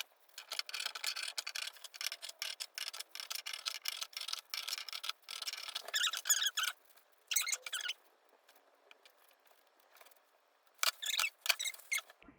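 Thin plastic crinkling and rustling in dense crackles for about six seconds, then in short bursts, the last one near the end. This is the plastic fringe of a homemade sound-suit costume being handled.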